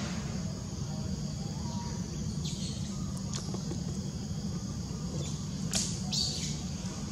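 A few short, high-pitched squeaks from a newborn macaque, over a steady high hiss of outdoor background.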